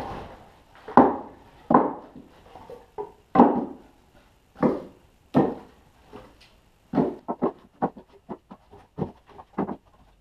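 Split birch firewood knocking and clattering as pieces are picked from a loose pile and set onto a stack: several loud wooden knocks about a second apart, then a quicker run of lighter clacks in the last few seconds.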